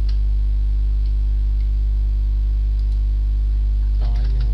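Loud, steady low electrical mains hum with its evenly spaced overtones, picked up on the recording line. A short spoken word comes near the end.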